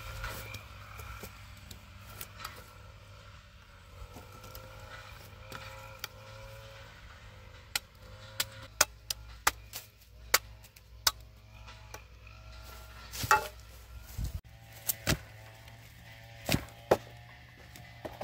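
Sharp chopping knocks of a machete striking bamboo fence stakes: a quick run of blows from about eight seconds in, then a few heavier strikes near the end, over faint background music.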